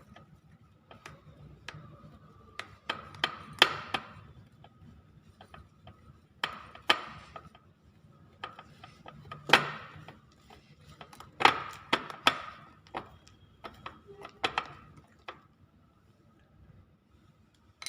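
A spoon knocking and scraping against a mixing bowl while stirring a thick chocolate mixture: irregular knocks, a few of them loud.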